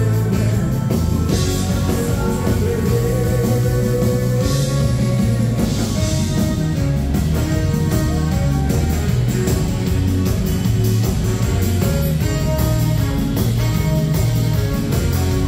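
A dance band playing live, loud, with electric guitar and drums keeping a steady rock'n'roll beat over a strong bass line.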